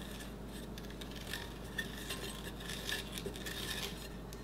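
Icing scraper scraping buttercream around the side of a layer cake as the cake turns on a metal turntable: faint scraping with a few light clicks.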